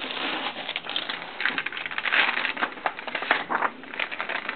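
Crumpled paper wrapping crinkling and rustling as it is handled and unfolded, in an irregular run of crackles that are loudest in the middle of the stretch.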